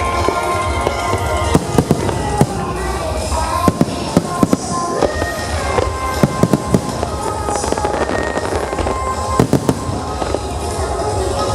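Fireworks bursting in a rapid, irregular string of sharp bangs over loud music playing throughout.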